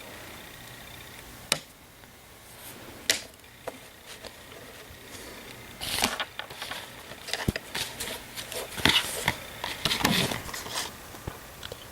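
Hands handling fingerboard parts and their packaging: two sharp clicks, then several seconds of rustling and tapping from about halfway through.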